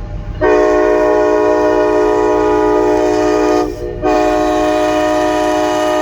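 Locomotive multi-chime air horn sounding a steady chord of several notes. It gives one long blast of about three seconds, breaks off for a moment, then sounds again and holds.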